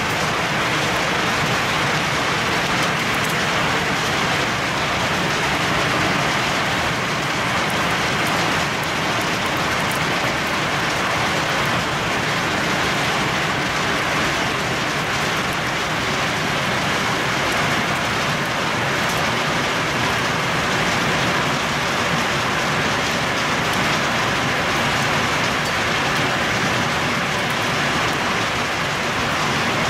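Heavy rain pouring steadily onto tree leaves: a dense, even hiss scattered with faint ticks of drops striking.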